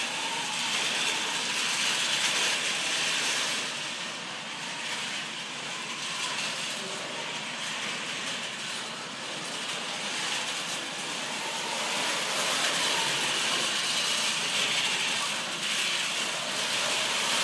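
FRC competition robot's drive motors and gearboxes running as it drives across carpet: a steady mechanical whirring that gets quieter for several seconds as the robot moves off, then louder again as it comes back.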